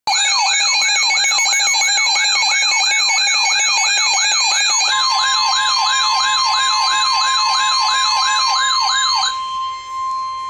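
Electronic siren yelping in fast repeated rising sweeps, about two and a half a second, with higher warbling tones layered over it. About halfway through, a steady single-pitch alert tone, the NOAA Weather Radio 1050 Hz warning alarm, comes in beneath it and carries on alone after the siren cuts off near the end.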